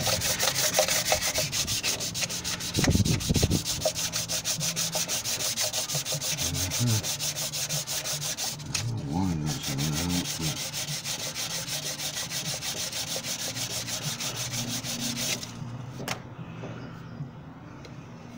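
Wet-and-dry sandpaper rubbed by hand over the cast-iron gasket face of a Morris Minor cylinder head, in quick, even back-and-forth strokes, dressing the face for a new head gasket. The scrubbing stops about 15 seconds in.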